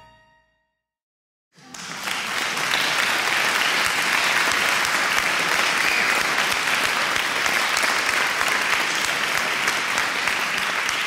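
An audience applauding, starting about a second and a half in and holding steady. The last note of a short music jingle dies away at the very start.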